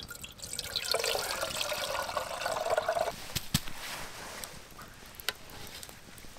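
Water poured from a fabric water bag into a metal camp kettle, a filling splash for about two seconds whose pitch rises slightly as the kettle fills. Then a couple of sharp clicks.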